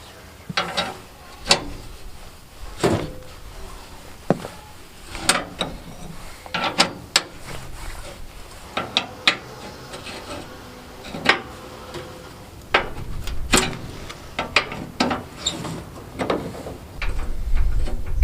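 Hand tools working on the metal side covers of a Case bulldozer: irregular sharp metallic clicks and clanks, a few each second or so, as bolts are loosened and the covers are handled.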